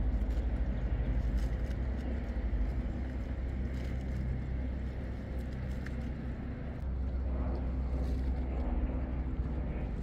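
Steady low rumble of outdoor background noise, with no clear single event standing out.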